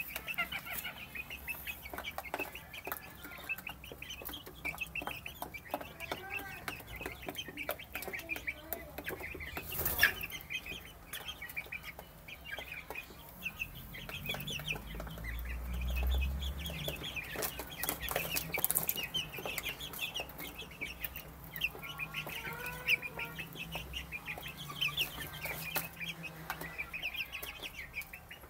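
A brood of chicks peeping continuously in quick, high cheeps, with scattered clicks and taps and one sharp knock about ten seconds in.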